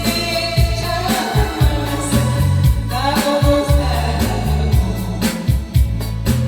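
A woman singing a Korean trot-style song over a backing track with bass and a steady beat, her sung line rising and falling in long held notes.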